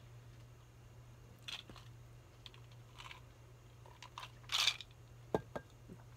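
Mouth noises of someone eating and drinking: small chewing sounds, then a loud sip from a glass about four and a half seconds in. A couple of sharp knocks follow as something is set down. A steady low hum runs underneath.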